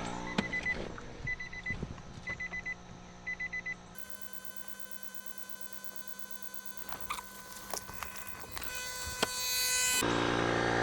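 Electric inflator pump beeping in short groups of high beeps, about one group a second, the alert that the inflatable has reached full pressure while the pump is left running. About four seconds in the sound cuts off abruptly to a faint steady hum with a few clicks.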